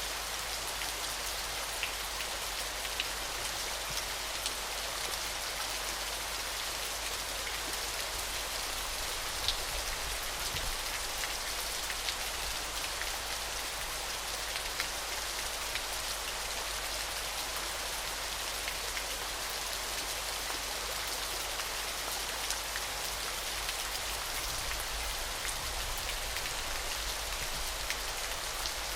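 Waterfall: a steady hiss of falling, splashing water with scattered small droplet ticks.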